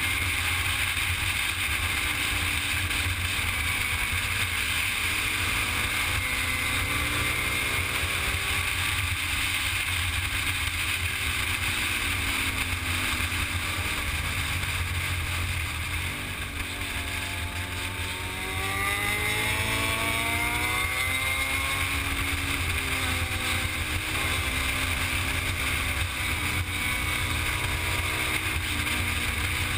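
Motorcycle engine heard from on board while riding, under heavy wind buffeting on the microphone. The engine note rises and falls with the throttle. Just past halfway it eases off for a couple of seconds, then climbs steeply in pitch as the bike accelerates.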